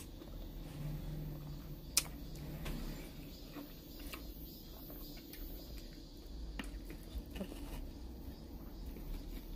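Quiet eating sounds from watermelon being chewed and handled by hand: scattered small clicks and taps, with one sharp click about two seconds in.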